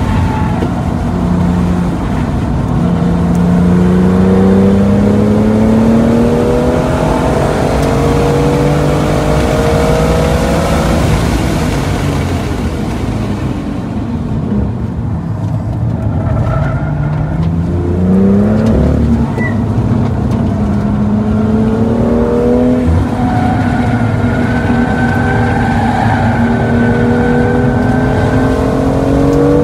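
2018 BMW M2's turbocharged straight-six heard from inside the cabin under hard acceleration, its pitch climbing through the gears with upshifts. About halfway through it drops away off throttle while the car slows for a corner, then pulls hard and climbs in pitch again.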